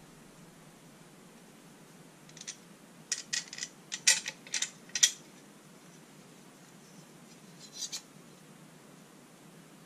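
Freshly sharpened Wilkinson Sword scissors, held together by a nut and bolt, being worked open and shut with the blades sliding closed. They give a quick run of about six sharp snips a few seconds in, and one softer snip near the end.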